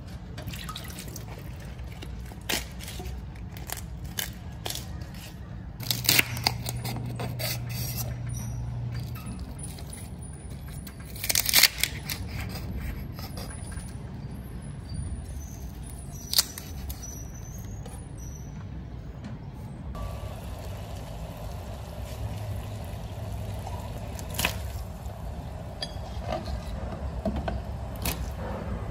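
Kitchen prep sounds: leafy greens splashed and handled in sink water, a knife knocking on a wooden cutting board as the stalks are cut, and stalks dropped into a pot of water. Sharp clicks and knocks come irregularly throughout, loudest about a third of the way in.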